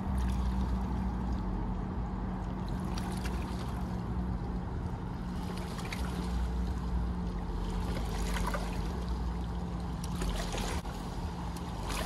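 Steady outdoor rumble with a faint constant hum and light hiss, with no distinct event standing out.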